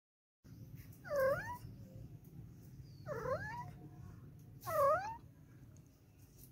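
A cat mewing three times, short calls about two seconds apart, each dipping and then rising in pitch.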